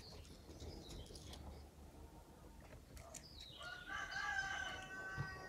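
A faint, drawn-out bird call starting about three and a half seconds in and held for about two seconds.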